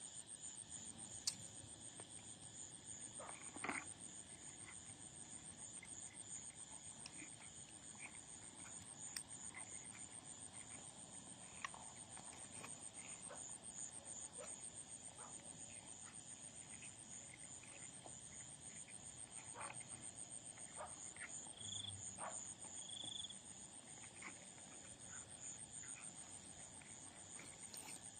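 Evening chorus of crickets and other insects: a steady, high, fast-pulsing trill. Scattered faint clicks and rustles run under it, and three short chirps come about three-quarters of the way through.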